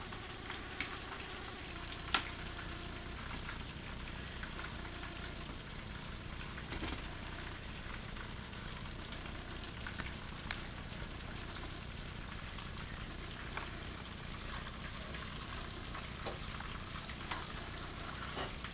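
Chicken pieces frying in oil in a pan, a steady sizzle, with sharp clicks of metal tongs against the pan about five times as the pieces are turned.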